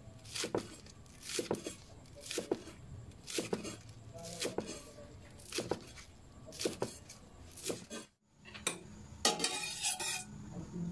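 Kitchen knife chopping green onions on a wooden chopping board, about one chop a second. Near the end, a metal spoon scrapes and clatters inside a stainless steel pot.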